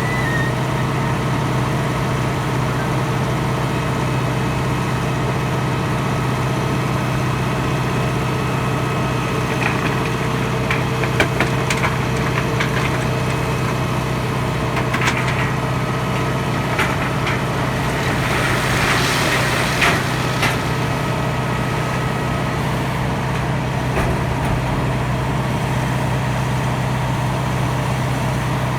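Hattat tractor's diesel engine running steadily at a constant speed. Scattered short clicks and knocks come in about a third of the way through, bunching up past the middle.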